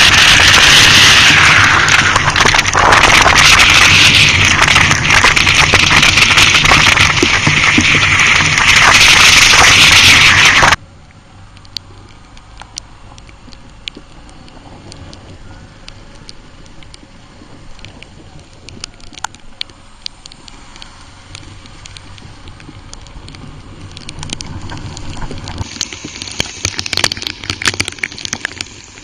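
Yamaha Serow 250 ridden through heavy rain: loud wind and rain rush with the engine's low drone underneath, which cuts off suddenly about eleven seconds in to a much quieter patter of raindrops ticking and crackling, growing a little busier near the end.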